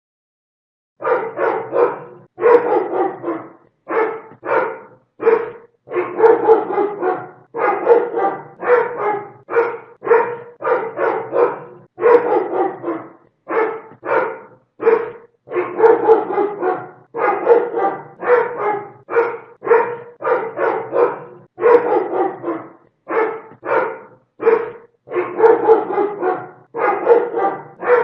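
A dog barking over and over in quick runs, about two barks a second with short pauses between runs, starting about a second in.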